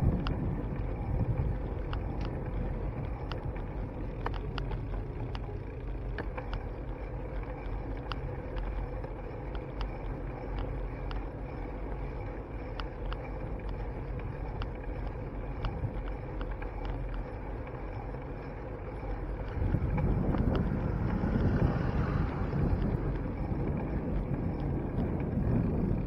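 Wind rushing over the microphone of a handlebar-mounted action camera on a moving mountain bike, with light ticks and rattles. The rush grows louder about twenty seconds in.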